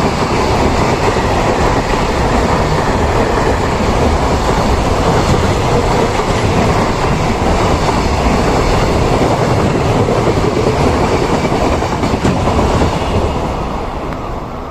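Freight train hauled by an EF210 electric locomotive passing by, its wagon wheels rumbling and clacking over the rails. The sound is loud and steady and eases a little near the end.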